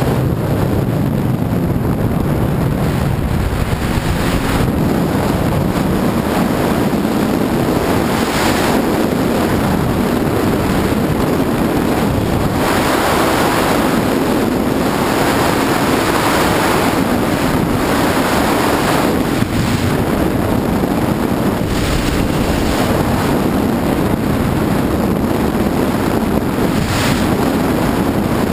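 Sea-Doo personal watercraft running on open water: a steady engine drone under wind buffeting the microphone and water splashing, with louder gusts now and then.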